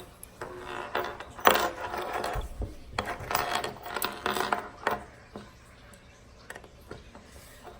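Metal handcuffs rattling, clicking and scraping as they are twisted and worked on the wrists, loudest about one and a half seconds in, then dying down.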